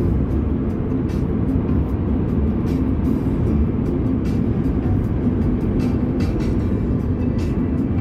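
Steady road and tyre noise inside a moving car at highway speed on a wet road, with music playing faintly underneath.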